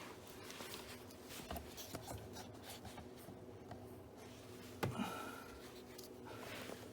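Faint scraping and small metallic clicks of hand tools working a door-hinge spring into place, with one sharper click about five seconds in.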